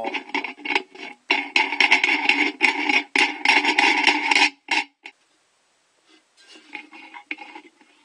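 Steel hex nut spun by hand down a threaded bolt onto a washer inside a terracotta pot: rapid, irregular metal scraping and rattling with a ringing tone under it. It stops about five seconds in and returns fainter and lighter near the end.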